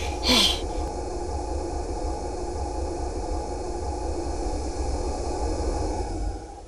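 A short burst of noise just after the start, then a steady low rumble with an even hiss over it, fading out near the end.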